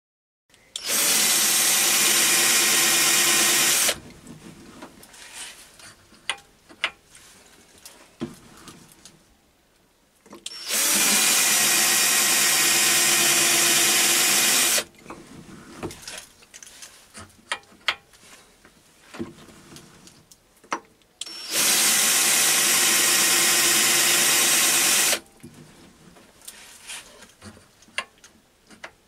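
Power drill driving a right-angled tool-post drill into the face of a metal workpiece on a lathe: three runs of about four seconds each with a steady motor whine, each cutting one hole. Between the runs, light clicks and knocks as the work is turned to the next index hole.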